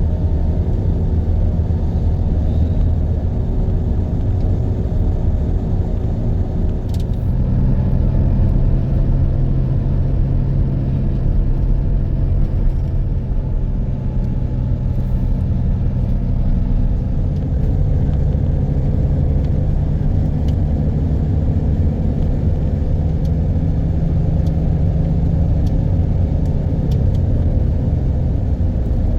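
Road vehicle running, a steady low rumble with its engine note, which steps up in pitch about seven seconds in and changes again around seventeen seconds.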